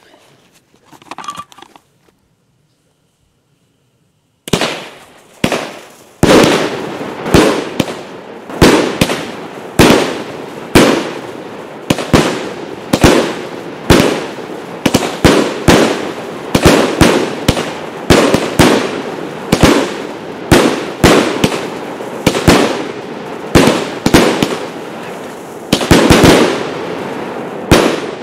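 Consumer firework battery (cake) firing. After two single shots about four and a half seconds in, it settles into a steady run of loud bangs a little over one per second, each trailing off before the next, and stops just before the end.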